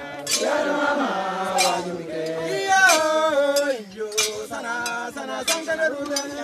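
A group of people chanting and singing together as they walk, the melody stepping and sliding downward, over sharp metallic clinks struck at an uneven beat.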